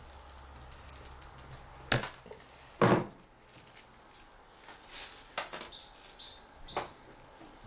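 A snip from a pair of cutting pliers trimming the thread ends, followed by a heavier knock as a tool is set down on the table. Near the end a bird chirps several times among a few light clicks of handling.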